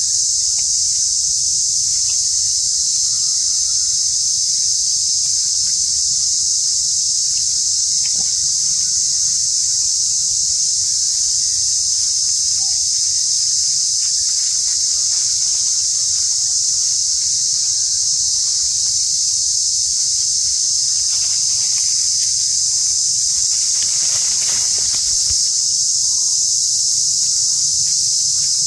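Steady, high-pitched insect drone from a chorus of insects, holding unbroken at one level.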